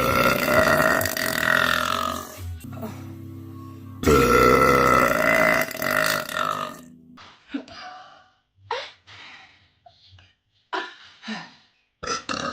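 A woman burping: two long, loud belches of roughly two to three seconds each, then a string of short burps with silent gaps between them.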